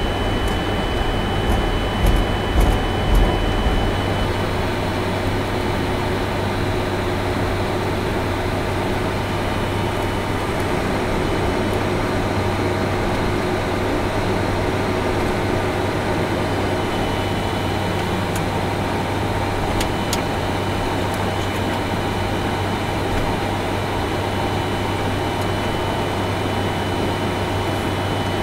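Steady flight-deck noise of a Boeing 747-400ERF freighter on the ground: the engines at idle and the air-conditioning and equipment hum, with constant low and high tones. A few low thumps come about two to three seconds in.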